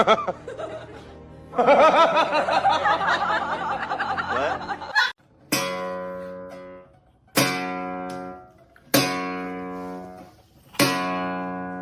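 Guitar music: a busy passage for the first few seconds, then four plucked chords struck one after another, each left to ring out and fade.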